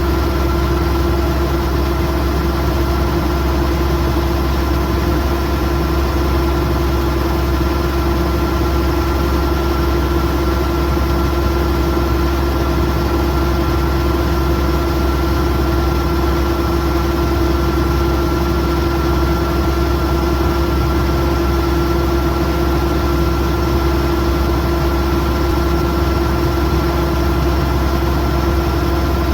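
Kubota DC108X rice combine harvester running at a steady engine speed: a constant low drone with a steady whine above it, unchanging throughout.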